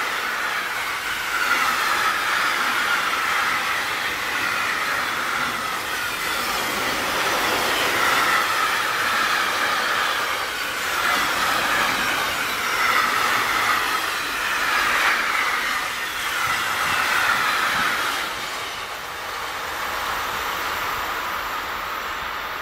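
Container freight wagons rolling past on an electrified main line: steady wheel-on-rail noise with a wavering high-pitched ring that swells every two or three seconds. It fades somewhat from about 18 seconds in as the end of the train draws away.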